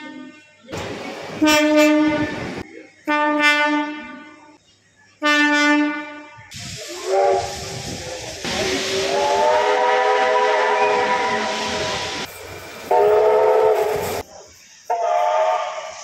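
Railway horn and whistle blasts from several trains in quick succession: three separate blasts of one horn in the first six seconds, then a long multi-note steam locomotive whistle chord, then two shorter horn blasts near the end.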